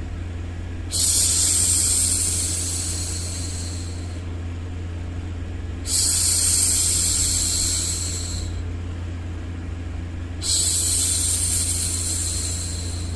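A woman shushing a baby: three long 'shhh' sounds about four and a half seconds apart, each starting suddenly and tapering off, over a steady low rumble of white noise.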